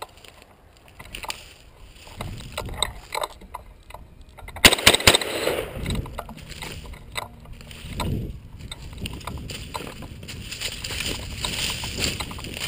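Handling and movement noise of an AR-15 carrying a rifle-mounted camera: irregular rustling and light knocks, with a quick cluster of loud sharp impacts about four and a half seconds in.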